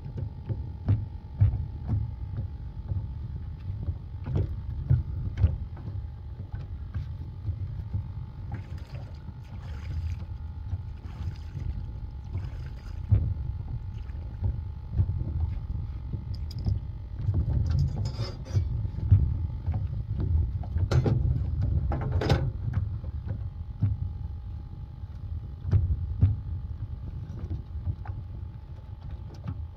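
Wind buffeting the microphone and water lapping against the hull of a small mud boat, with scattered knocks and clatter as a redfish is handled on the deck. A faint steady hum runs underneath.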